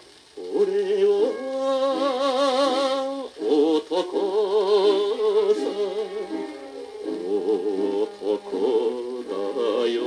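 A 1959 Japanese popular-song record playing on a turntable: a melody with wide vibrato over its accompaniment, after a brief dip in level at the start, with a sharp click about four seconds in.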